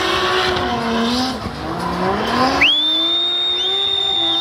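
Drift car's engine revving up and down under load, with tyre noise. About two-thirds of the way in, a loud, steady, high-pitched tyre squeal sets in as the car slides and holds on.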